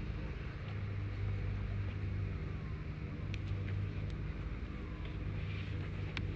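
Steady low hum of a running motor, with a few faint clicks.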